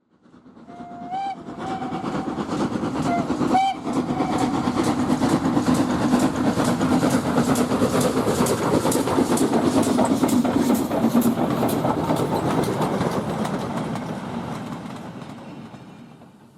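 Ivatt 2MT 2-6-2T steam tank locomotive sounding its whistle in the first few seconds, then its exhaust beating hard as it works a train up a steep gradient, swelling loud as it passes and fading away near the end.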